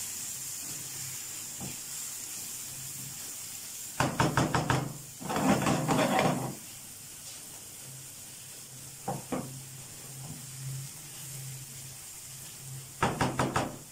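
Sliced onions sizzling in oil in a non-stick frying pan while a silicone spatula stirs them, knocking and scraping against the pan in short clusters about four and six seconds in, briefly near nine seconds, and in a quick run of taps near the end.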